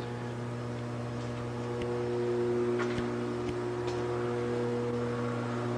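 A low, steady droning note, held without a break, with a few faint clicks near the middle.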